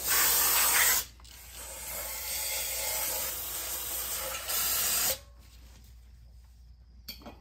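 Aerosol spray can hissing through its straw nozzle onto a brake rotor and caliper in bursts. It is loud for about the first second, softer for a few seconds after that, loud again briefly about four and a half seconds in, and stops about five seconds in.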